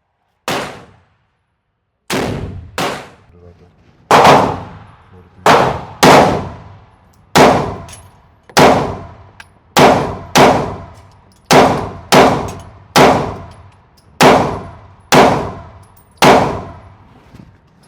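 A string of semi-automatic gunshots on an indoor range, about nineteen single shots at roughly one a second, each with a short ringing echo.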